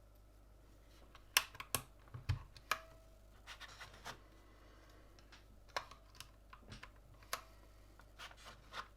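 Irregular, scattered clicks and light plastic clatter from a Gamakay LK67 mechanical keyboard with Gateron red linear switches being worked on by hand, with a few brief scratchy rubs between the clicks.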